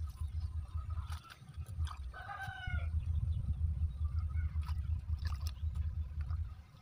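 A rooster crows once, briefly, about two seconds in. Under it runs a steady low rumble, with scattered clicks and light splashes from hands working shredded banana flower in a bucket of water.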